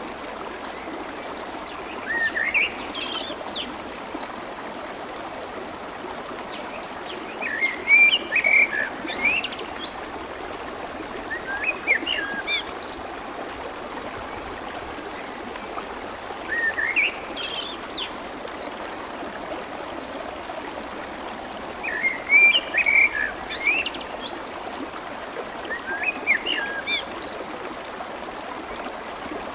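Clear water flowing and babbling steadily, with a bird singing short chirping phrases about every five seconds over it.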